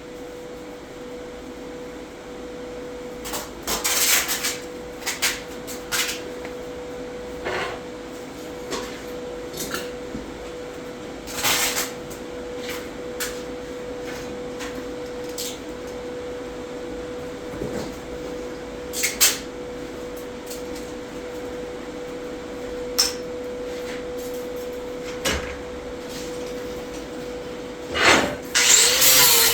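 Scattered knocks and clinks of metal parts and tools being handled over a steady hum. Near the end a loud power tool starts up.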